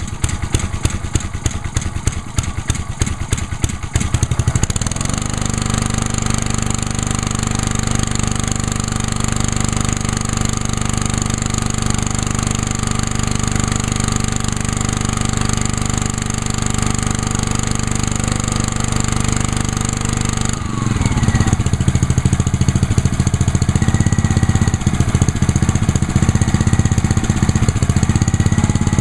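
Honda GCV190 single-cylinder engine on a Ryobi gas pressure washer, cold-started on choke. It runs unevenly for the first few seconds, then settles into a steady run. About two-thirds of the way through its note dips and falls briefly, then it runs on with a changed, somewhat louder sound.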